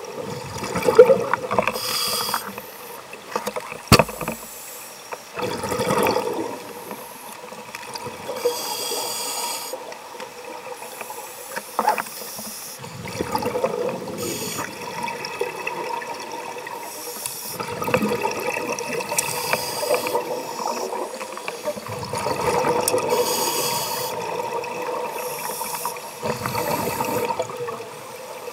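Scuba regulator breathing heard underwater through a camera housing: a hissing inhale through the regulator, then a burst of exhaled bubbles, repeating every few seconds. Two sharp knocks, about four and twelve seconds in.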